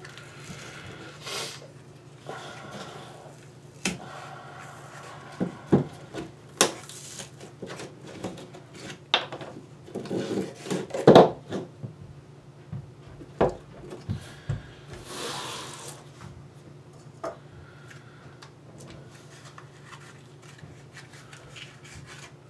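Cardboard firework tube being peeled and torn apart by hand: paper rubbing and tearing, with scattered light knocks and clicks on the tabletop and a longer tearing scrape about 15 seconds in.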